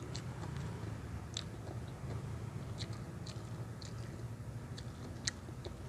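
A person chewing crunchy food close to the microphone, with sharp crunches every second or so over a low, steady hum.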